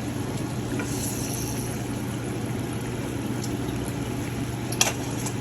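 Steady low hum and hiss in a kitchen while a pot of pepper steak cooks on the stove, with one sharp clink, like a spoon against the pot, near the end.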